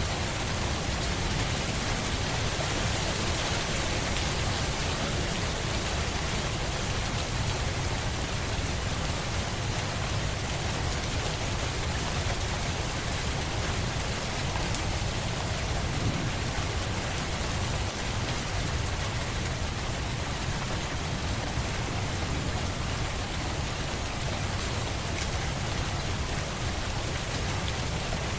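Steady rain falling on surfaces, an even hiss with a deep low rumble under it.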